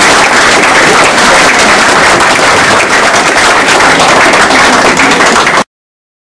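Audience applauding loudly, many hands clapping at once; the sound cuts off abruptly about five and a half seconds in.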